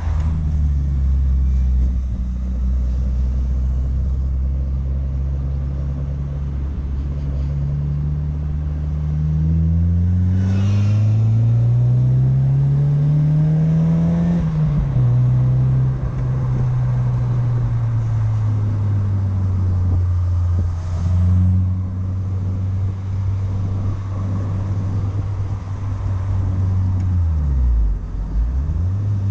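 1993 Mazda MX-5 Miata's 1.6-litre four-cylinder engine through an aftermarket Cobalt exhaust, heard from the driver's seat while driving. It cruises steadily, then the revs climb under acceleration about a third of the way in, drop and ease off slowly, step up again around two-thirds through, and dip briefly and come back near the end.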